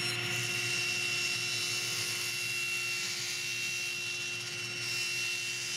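Table saw running with a steady whine and hiss as its blade rips through a thin plywood panel, 1/8-inch Baltic birch faced with paper-backed walnut veneer, fed by a push block.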